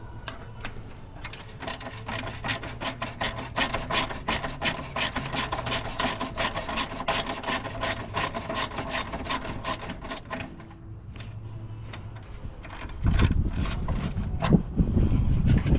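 Ratchet wrench on an extension clicking rapidly and evenly, several clicks a second, as it turns out a horn's 12 mm mounting bolt, then stopping; near the end a loud low rumble of handling noise.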